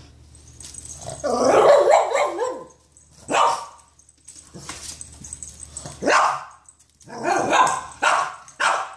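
A dog barking loud, separate barks, about six in all, with a longer run of barking about a second in and short single barks after it.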